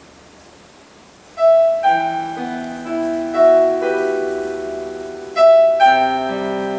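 Piano music starts about a second and a half in: slow notes struck and left to ring, with a new chord or note every second or so, after faint hiss.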